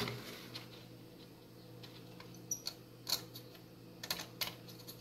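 Scattered light clicks and taps of a small electrolytic capacitor and hand tools being handled while the capacitor is fitted into a circuit board, over a faint steady hum.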